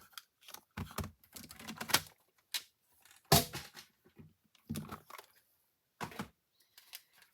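Irregular knocks, clicks and brief paper rustles from craft supplies being handled and set down on a table, about seven separate sounds with the loudest knock a little past the midpoint.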